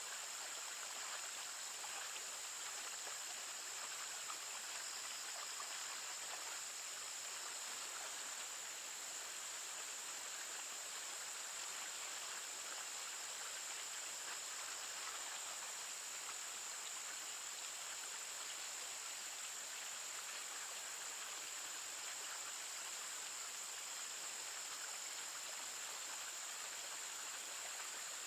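Steady running water of a small trout stream, with a constant high-pitched whine over it.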